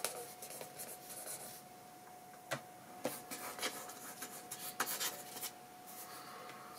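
The pointed wooden end of a brush handle scratching ink strokes onto sketchbook paper, in several short, separate scrapes.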